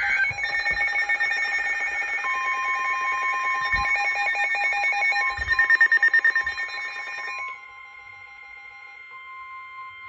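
Emergency Alert System attention tones: several steady alert tones sounding together with a fast pulsing beat, loudest around the middle. About seven and a half seconds in they drop to a quieter steady tone.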